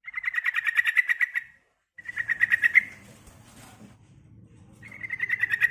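Female yellow-vented bulbul (trucukan) calling with rapid chattering trills, about ten notes a second, in three bursts that each grow louder, the last cut off at the end.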